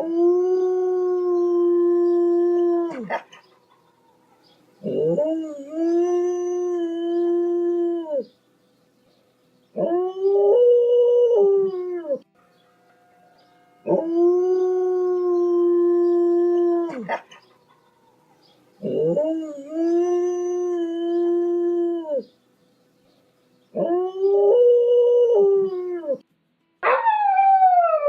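Dog howling: seven long howls of two to three seconds each, separated by short pauses. Most hold a steady pitch, and the last slides downward. The same howls recur, as in a looped recording.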